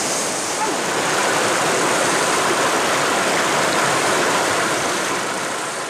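River water rushing over rocks in rapids: a steady, full rush that begins to fade near the end.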